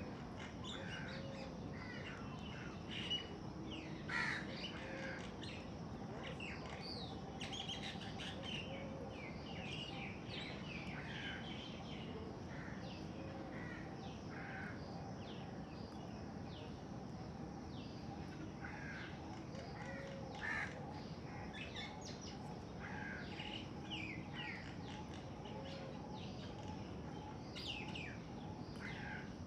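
Ring-necked parakeet calling: many short calls and chirps repeat throughout, with a few louder ones about three to four seconds in and again about twenty seconds in.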